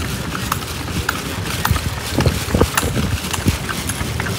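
Rumble of a moving hired passenger vehicle on the road, with irregular light rattling clicks and a few heavier thumps a little past the middle, as over bumps.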